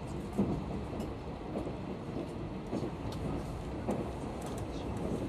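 Locomotive-hauled sleeper coach running, heard from inside: a steady low rumble of wheels on rails with a few faint knocks and clicks, the quiet running sound of the passenger car.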